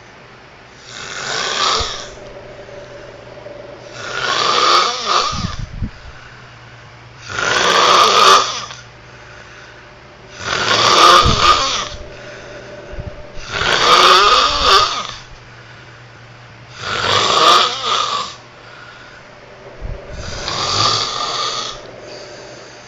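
Loud, regular snoring: seven long snores, one about every three seconds, each lasting a second or more.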